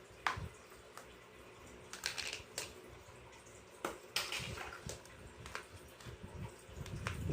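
Light plastic clinks and knocks of toy dishes and utensils being handled, with short splashes of water as they are washed.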